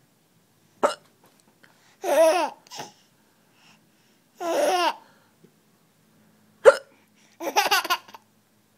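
A woman hiccuping sharply, twice, each time followed by a 5-month-old baby's high-pitched laughter, three bursts in all, the last a quick run of chuckles.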